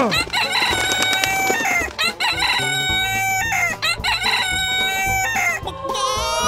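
Rooster crowing three times in a row, each crow a long call of about a second and a half.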